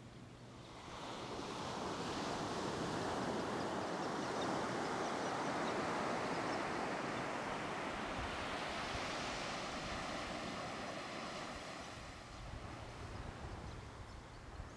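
Ocean surf washing up a sandy beach: the rush of water swells about a second in and fades slowly over the last few seconds.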